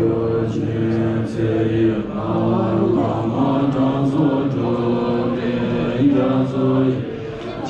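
A group of voices chanting together in Tibetan Buddhist ritual style, holding long notes over a steady low drone and stepping between pitches every second or so.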